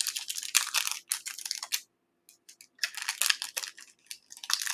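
Wrapping crinkling and rustling as it is pulled open by hand, in three short bouts of rapid crackles with brief pauses between.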